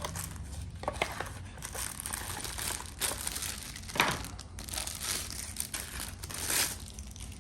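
Knife packaging being opened and handled: continuous crinkling and rustling with scattered sharper crackles, the sharpest about four seconds in.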